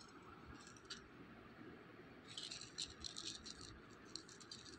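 Cat crunching dry kibble: faint, quick crisp clicks, a few about half a second in and a denser run from a little before halfway to near the end.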